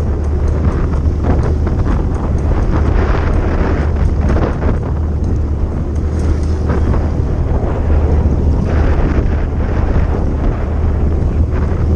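Wind buffeting the microphone: a steady low rumble with a rushing haze above it.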